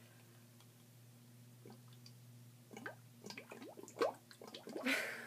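A thick smoothie being sipped through a straw: a run of irregular slurping, gurgling sounds that starts about halfway through and ends in a louder slurp.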